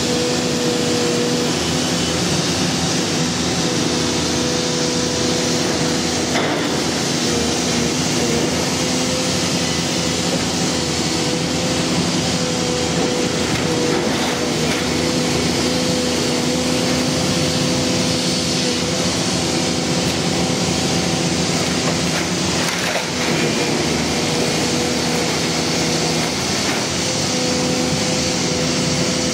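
Volvo EC460CHR demolition excavator running steadily under load, its diesel engine and hydraulics making a constant hum. Over it come the crunching and cracking of wooden roof timbers and concrete being torn apart by the grapple, with a couple of sharper knocks.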